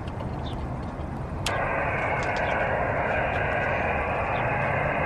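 Steady low rumble, then about a second and a half in a radio receiver's hiss switches on abruptly and holds steady, cut off sharply above the voice band: SSB receiver noise as the 47 GHz rig goes back to receive, with no station heard in it.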